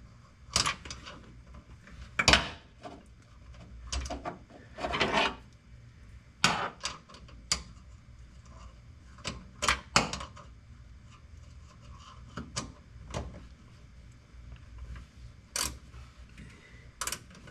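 Hand-tool work on a pickup truck: irregular knocks, clanks and scraping, with about a dozen sharp strikes spread unevenly through.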